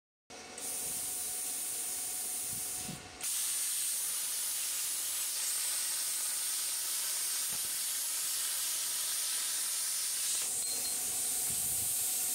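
Stel P80 inverter plasma cutter cutting 5 mm iron at 70 A: a loud, steady hiss of the plasma arc and compressed-air jet, with a brief break about three seconds in. The hiss goes on as the torch is lifted off the sheet near the end, then cuts off suddenly.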